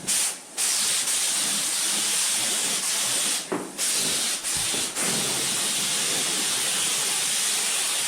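Air spray gun hissing steadily as it sprays clear coat lacquer, with a few short breaks between passes.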